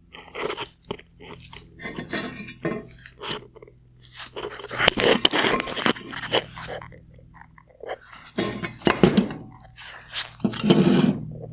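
Metal and plastic parts of a bi-xenon headlight projector clinking and clattering as they are handled and fitted together, in irregular bursts of small knocks and scrapes.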